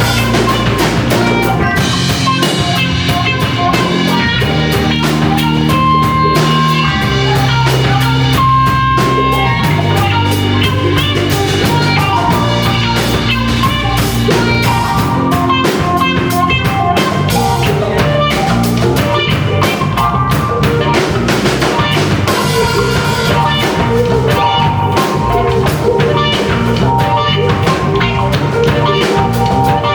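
Rock band playing live: a drum kit keeping a steady beat under guitar lines, with no singing.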